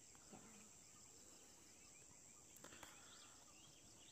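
Near silence: faint open-air ambience with a steady high-pitched hum and a few faint chirps in the second half.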